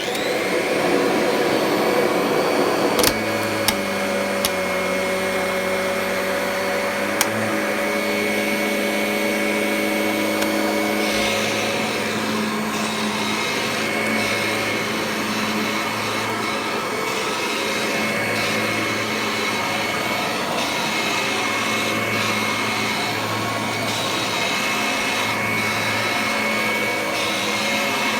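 Kirby Ultimate G upright vacuum cleaner switched on and running up to speed over the first couple of seconds, then running steadily while vacuuming. A few sharp clicks sound in the first several seconds.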